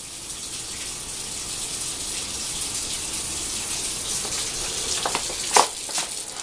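Water running steadily from a tap, a steady hiss, with a few short sharp knocks about five to six seconds in.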